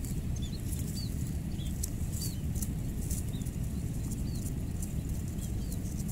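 Short high chirps of a small bird, a dozen or so scattered irregularly, over a steady low outdoor rumble.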